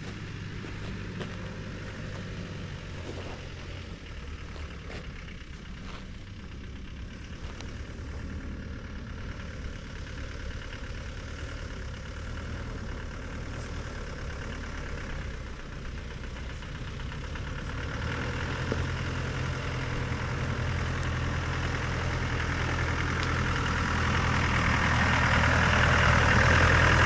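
Off-road vehicle engine running steadily, growing louder over the last several seconds.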